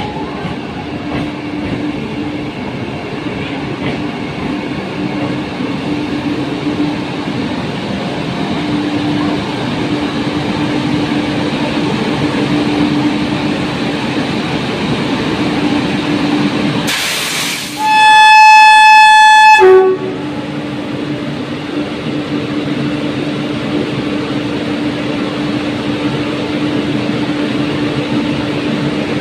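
WAG-9HC electric locomotive drawing an express passenger train slowly along a station platform, with a steady hum and rolling rail noise. A little past halfway its air horn sounds very loud for about two seconds as one held note, ending with a brief lower note.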